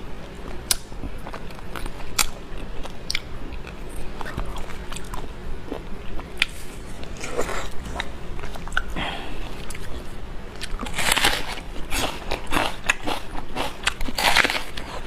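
Close-miked chewing and biting of beef bone marrow, with a run of wet clicks and crunches that gets busier near the end.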